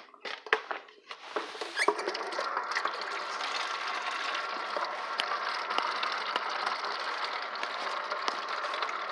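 A few clicks and knocks of handling at a kitchen sink, then from about two seconds in a kitchen faucet running, water splashing steadily into a stainless steel sink.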